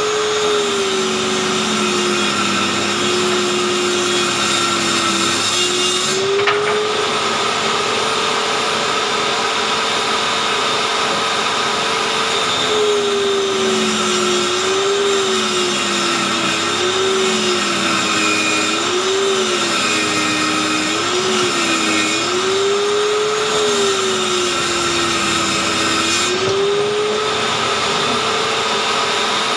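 Handheld circular saw mounted under a homemade table as a rip saw, its motor running with a steady whine that sags in pitch while the blade rips a board lengthwise and rises again as the load eases. There are longer loaded stretches near the start and near the end, and several short dips in quick succession in the middle.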